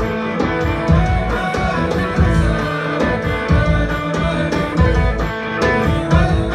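Tuareg desert-blues band playing live: interlocking electric guitar lines over a steady bass guitar line, with a hand drum keeping the beat.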